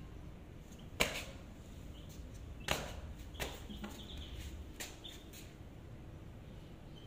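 Faint, short high peeps of a domestic chick, with two sharp knocks about one second and nearly three seconds in and a few lighter taps after.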